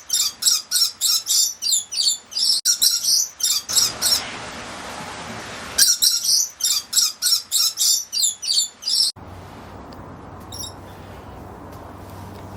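An aviary bird giving fast, shrill, repeated calls, about four or five a second, in two runs of a few seconds with a stretch of steady hiss between them. After the second run the calls stop suddenly, leaving low background noise with a few faint chirps.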